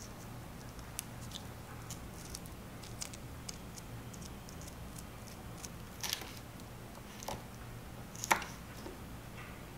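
Miniature knife slicing a yellow bell pepper on a small wooden cutting board: scattered soft cuts and light taps of the blade against the board, two of them louder in the second half, over a faint low hum.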